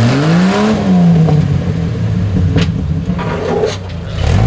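Rock-crawling Jeep's engine revving up in the first second and falling back, then running rough under load while the tyres and chassis knock and scrape on rock, with a few sharp knocks; the engine tone comes back up near the end.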